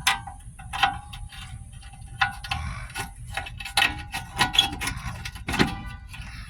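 Irregular metallic clicks and clinks with brief ringing, from a bolt and tools knocking against a car's rear suspension arm as it is lined up by hand.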